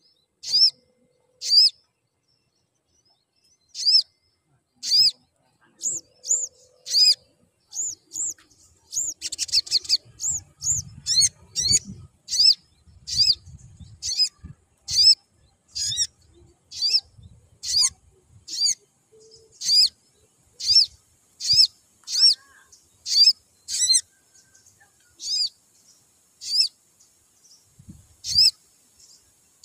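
Olive-backed sunbird (sogon) chirping: a long series of short, sharp, high chirps, each a quick up-and-down note, coming about once a second and closer together in the middle, after a short pause near the start.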